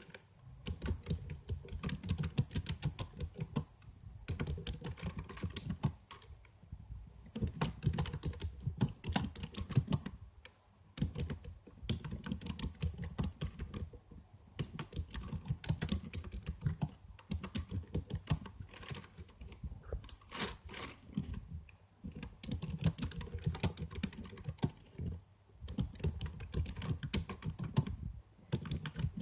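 Typing on a computer keyboard: rapid runs of key clicks lasting a few seconds each, broken by short pauses.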